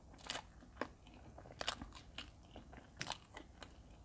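Close-up mouth sounds of eating a soft cream horn: quiet chewing of bread and cream, with a few short scattered clicks and smacks.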